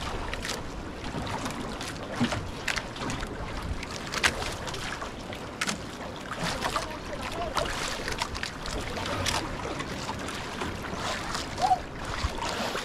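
Water slapping irregularly against the hull of a small boat at sea, over a steady wash of wind and waves on the microphone.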